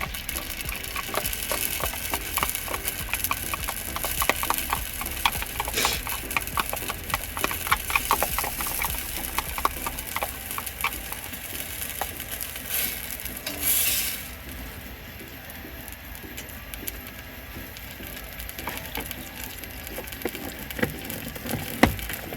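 Wood campfire crackling, with many rapid, irregular pops that thin out in the second half, and a short hiss a little past halfway.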